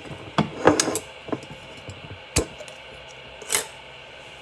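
Light knocks and clicks of jars and glassware being handled on a kitchen counter, with one sharp click a little past halfway and a short rustle near the end.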